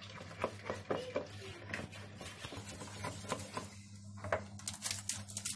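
Hand whisk beating cake batter in a white ceramic bowl, giving quick irregular clicks and taps as the wires knock the bowl, with a short pause partway through.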